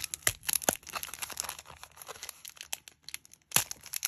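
Clear plastic packaging bag crinkling and crackling as fingers pull it open, a dense run of sharp crackles with a short lull and louder crackles near the end.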